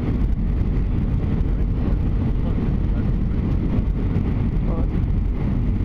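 Steady low cabin roar of an Airbus A320 on approach, heard at a window seat over the wing: engine and airflow noise with the flaps extended.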